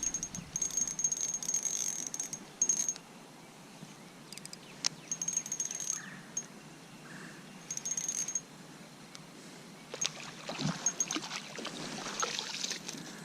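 Fishing reel being cranked in spurts: a high thin whir with metallic clicking that starts and stops several times.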